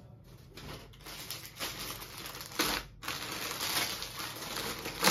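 Clear plastic packaging of a packed suit crinkling and crackling as it is handled, with fabric rustling. It starts about a second in, with a sharper crackle near the middle and another near the end.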